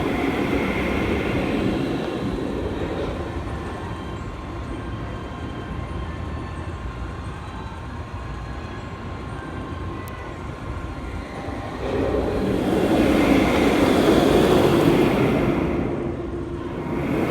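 Steel roller coaster train on a test run, loaded with water dummies, rumbling along its track. The rumble is quieter through the middle, swells loud about twelve seconds in as the train comes close, dips briefly, then rises again at the end.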